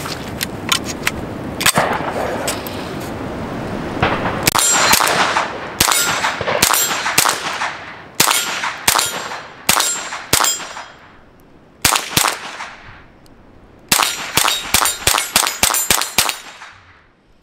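Suppressed .22 LR CZ Scorpion carbine firing repeated single shots, each a sharp crack with a ringing metallic tail: a steady string at under a second apart, then a quicker run of about eight shots near the end.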